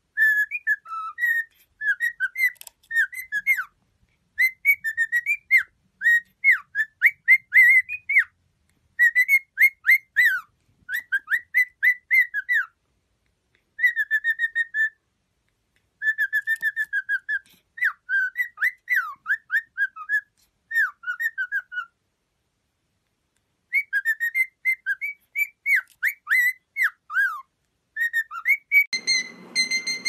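Cockatiel whistling its song: quick runs of short, bouncing whistled notes in phrases of a few seconds, with short pauses between them. About a second before the end a steady high tone over a low hiss comes in.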